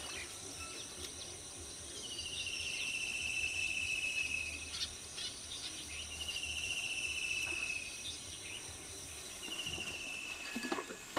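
An insect trilling three times, each buzzy trill about two seconds long and slightly falling in pitch, the last one shorter, over a steady high-pitched whine.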